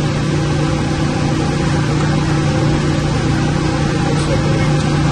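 Steady drone of running plant machinery, such as the chiller plant's pump motors, with a constant low hum under a haze of mechanical noise.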